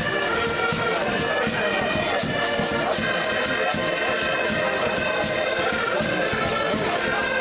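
An ensemble of button accordions playing a tune together: held reed chords over a steady, even beat.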